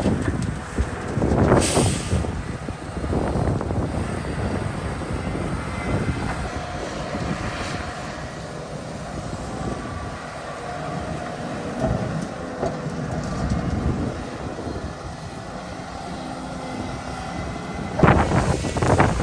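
Volvo excavator working, its diesel engine running steadily, with a sharp knock near the start. A loud rushing noise sets in near the end.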